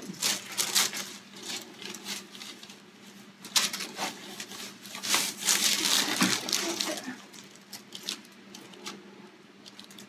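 Paper headrest cover and hair rustling and crinkling as a chiropractor's hands handle a patient's head and neck, with several sharp clicks and a busier stretch in the middle. A faint steady hum runs underneath.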